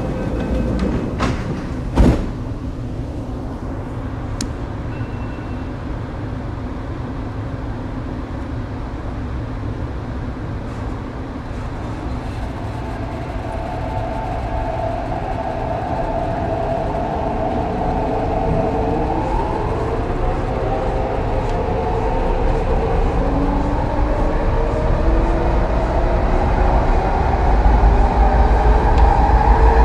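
Hong Kong MTR East Rail Line R-train electric multiple unit, heard from inside the car, pulling away from a station: a sharp thump about two seconds in as the doors shut, then a steady hum. From about twelve seconds in, the traction motors whine in several tones that slowly rise in pitch and grow louder as the train accelerates.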